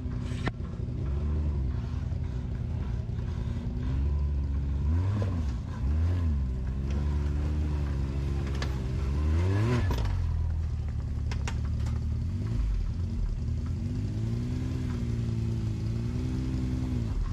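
Off-road vehicle engine revving up and dropping back again and again as it crawls over rocks, with a few sharp knocks in between.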